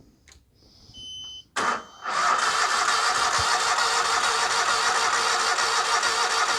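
A short electronic beep, then a zero-turn mower's engine starts and runs steadily for about five seconds before cutting off suddenly.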